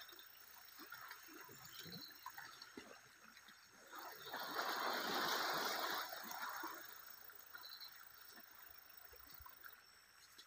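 Asian elephants splashing and wallowing in a muddy pool, water sloshing and dripping, with a louder spell of splashing about four to six seconds in.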